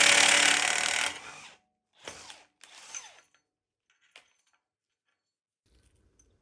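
A power tool run in three bursts while suspension parts are unbolted: one loud burst of about a second and a half, then two short ones, followed by a single sharp click.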